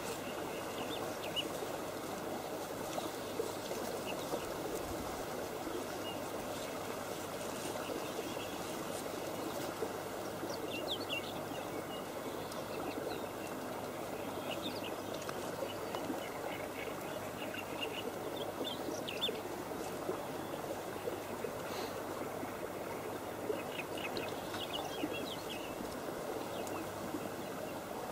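Small birds chirping now and then, a few short calls at a time, over a steady even hiss of outdoor background noise.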